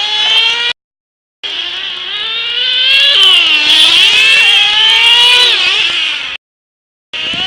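Several radio-controlled off-road model cars' small engines running at high revs. Their high-pitched whine rises and falls as they throttle up and down. The sound is broken twice by abrupt cuts to silence, about a second in and near the end.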